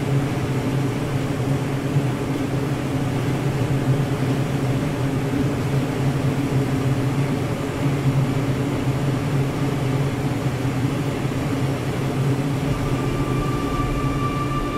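Steady low droning hum over a rushing hiss. Near the end, sustained music tones come in on top of it.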